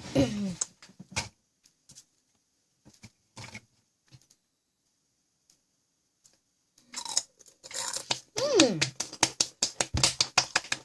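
Crunchy Ogamja potato snacks being bitten and chewed close to the microphone: a few faint clicks at first, then a dense run of crackling crunches from about seven seconds in, with a brief falling 'mm' hum in the middle of it.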